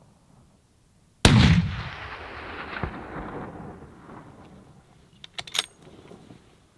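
A single hunting-rifle shot about a second in, its report echoing off the mountains and rolling away over about three seconds. Near the end comes a quick cluster of sharp metallic clicks as the rifle is worked for another shot.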